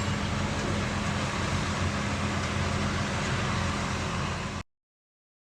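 Heavy truck's diesel engine running steadily with a low hum, cutting off abruptly about four and a half seconds in.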